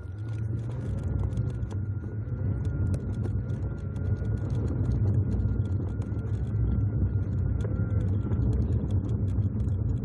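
Car driving along with a steady low engine and road rumble, peppered with many small clicks and rattles.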